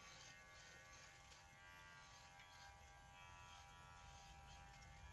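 Electric hair clippers buzzing faintly and steadily while cutting a man's hair.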